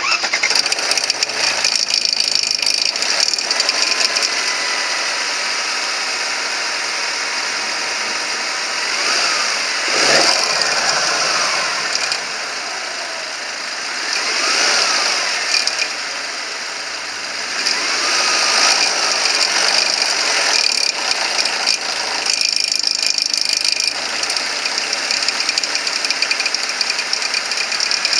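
Mercedes-Benz W204 C180's M271 four-cylinder engine running with a busy mechanical rattle, the abnormal noise that the seller points out. The revs rise and fall three times partway through.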